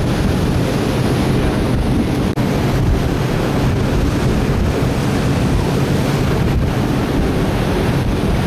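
Strong wind buffeting the camcorder's microphone in a steady, low, rumbling rush, with a brief drop about two seconds in.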